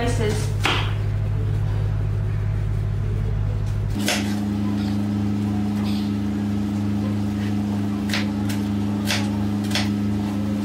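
Chef's knife tapping a wooden cutting board a handful of times while chopping onion, most of the taps in the second half. Under it runs a steady low hum, louder than the taps, which changes pitch about four seconds in.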